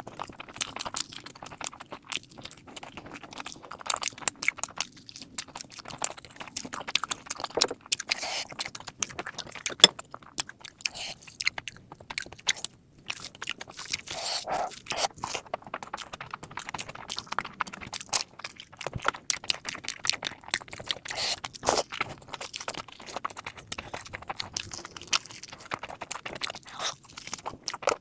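Close-miked chewing and mouth sounds of a person eating mutton fat curry with rice: a dense, irregular run of short smacks and clicks, with occasional sharper crunches.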